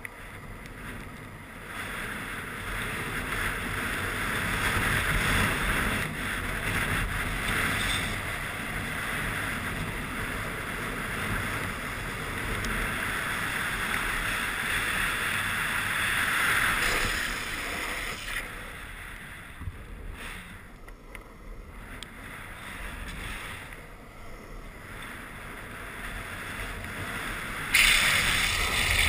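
Wind rushing over the microphone with a downhill longboard's wheels rolling on asphalt at speed, as a steady rushing noise. It eases off after the middle and turns suddenly louder near the end.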